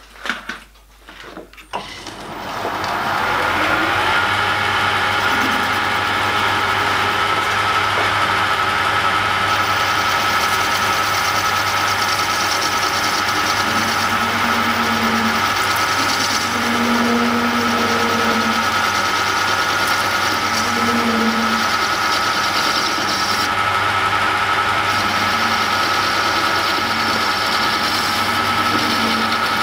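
Metal lathe starting up about two seconds in, its motor and drive whine rising in pitch for a couple of seconds and then running steadily while a parting tool cuts into the spinning workpiece.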